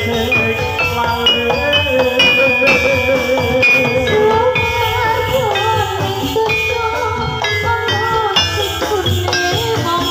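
Javanese gamelan music for a jathilan horse dance: metal keyed instruments ringing a busy stepped melody over steady drumming, with a long wavering melody line above.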